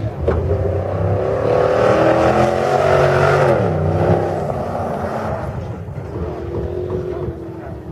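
First-generation Ford SVT Raptor pickup's V8 accelerating along a dirt track and passing close by, its engine note rising and growing louder, then dropping in pitch as it goes past about three and a half seconds in and fading as it drives away.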